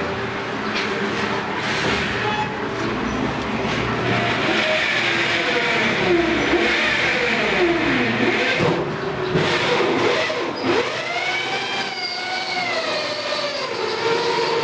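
CNC router running a job: its axis motors whine in tones that glide up and down as the gantry speeds up and slows between moves, with a steady hissing rush for a few seconds in the middle.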